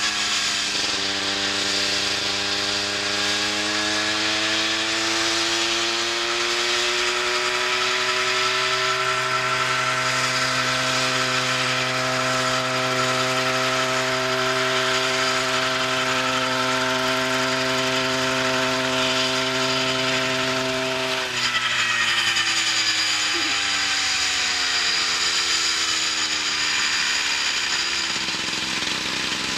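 The 100 cc engine of a homemade coaxial RC helicopter is running with both rotors turning while it sits on its skids. Its pitch rises over the first several seconds and holds steady. About two-thirds of the way in it drops as the throttle comes back, then climbs again near the end.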